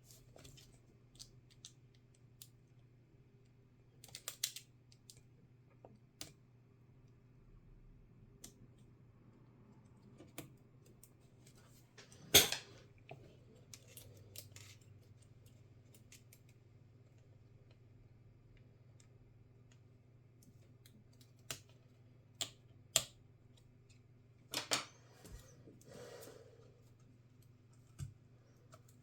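Scattered sharp clicks and light taps of small laptop parts and hand tools being handled during a laptop disassembly, the loudest about twelve seconds in and a cluster of them near the end, over a steady low hum.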